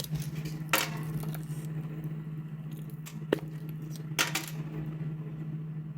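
A steady low hum with a few clinks and rattles of small hard objects being handled: one a little under a second in, a sharp click past the halfway mark and another rattle soon after.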